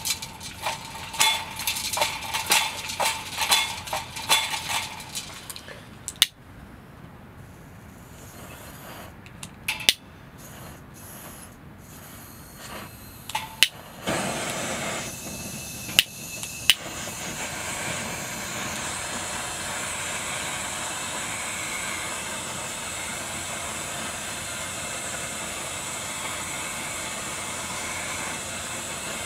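Takei 501A kerosene pressure burner: a run of squeaky pump strokes, a few sharp clicks, then it lights about halfway through and settles into a steady hiss as it burns during its preheating stage.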